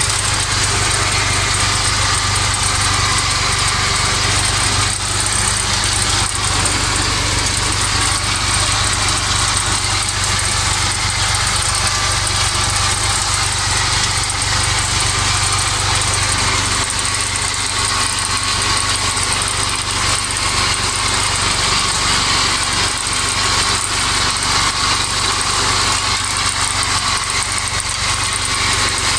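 IMT 539 tractor's three-cylinder diesel engine running steadily at working speed, heard from inside the cab while it drives through a hay meadow with a Kuhn implement.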